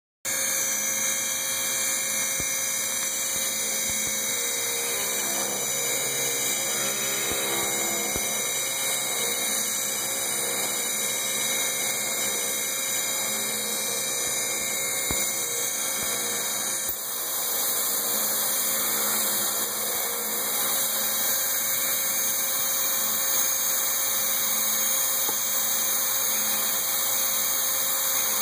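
Metalworking machine tool running steadily while machining an Oldham coupling part, with a brief break about two-thirds of the way through.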